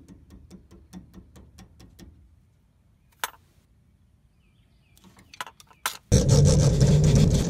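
Rubber mallet tapping on a VW bus's front axle beam: rapid light blows, about four a second, for the first two seconds, then a few scattered clicks. About six seconds in, a much louder, rough scrubbing noise with a steady low hum starts suddenly.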